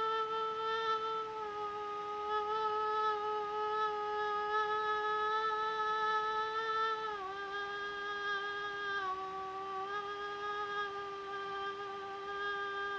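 A woman's voice holding one long, unbroken sung note in an endurance attempt to sustain a single note as long as possible. The pitch stays steady, dipping slightly about seven seconds in.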